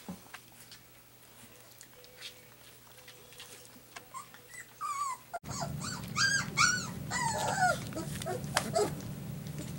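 Border collie puppies at play: faint scuffling at first, then a run of high-pitched whines and yelps, rising and falling in pitch, from about six seconds in.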